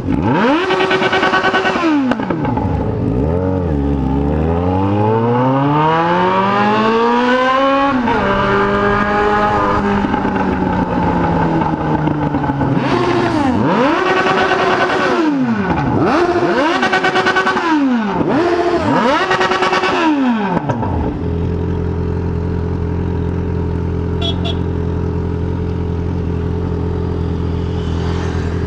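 Inline-four sport motorcycle engine being revved hard: one long climb in pitch, then several quick blips of the throttle that rise and fall, before it settles to a steady low-rev run about two-thirds of the way in.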